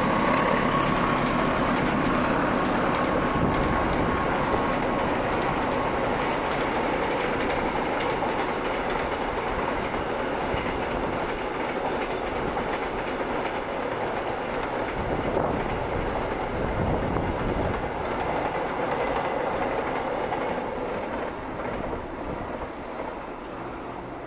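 A long freight train of container flatcars rolling past on the rails: a steady clatter and rumble of wheels that slowly fades as the train moves away.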